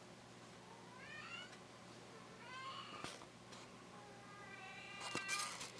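A house cat meowing three times, faint: the first call rises in pitch, and the last is the longest.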